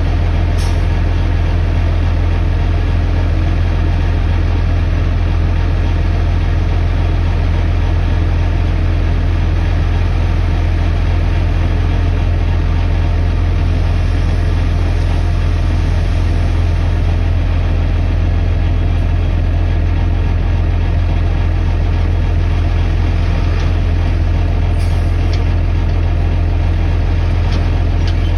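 Heavy machine engine idling steadily, a loud, constant low rumble.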